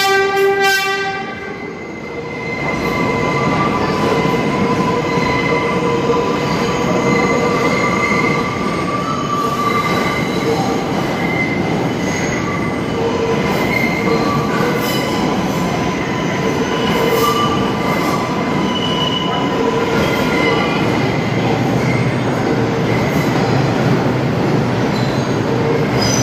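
A subway train sounds a short horn blast in the first second, then rolls into the station with a steady rumble of wheels on the rails, broken by high squeals from the wheels against the rail.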